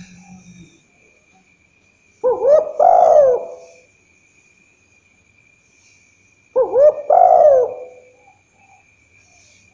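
Spotted dove (tekukur) cooing: two loud, throaty multi-note coo phrases about four seconds apart.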